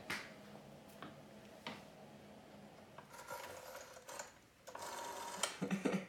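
Rotary telephone dial being wound round by finger and spinning back, a mechanical whirring rattle with clicks. A few single clicks come first, then two longer runs near the end, the second longer and louder.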